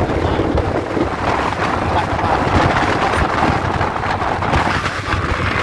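Wind rushing over the microphone from the window of a moving passenger train, over the steady running rumble of the train.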